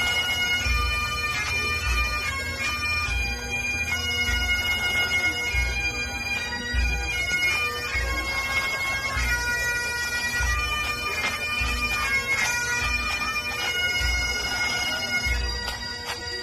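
Bagpipes playing a slow tune over their steady drone, with a regular low beat underneath about one and a half times a second.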